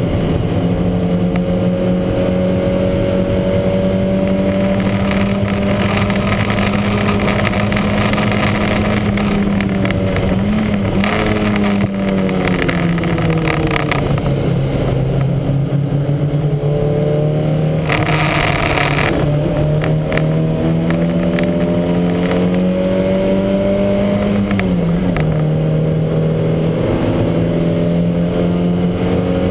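Lancia Montecarlo race car's engine heard onboard at racing speed, pitch climbing slowly and dropping sharply at upshifts about ten seconds in and again near the end. A brief burst of rushing noise comes about two-thirds of the way through.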